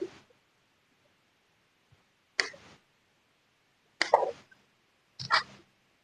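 Three short knocks and clicks about a second or two apart, from small tools and parts being handled and set down on a workbench.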